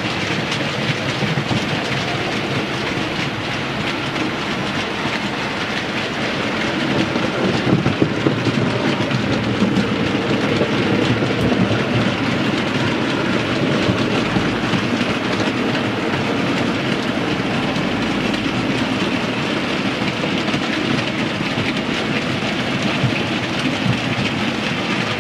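OO gauge model trains rolling along the track, with a steady rattle of small wheels clicking over the rail joints. It gets a little louder from about seven seconds in.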